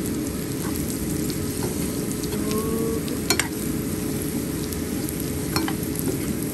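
Meat chunks sizzling in hot oil in a wok while a metal spatula stirs them, with a few sharp clinks of the spatula against the pan, the loudest about three seconds in.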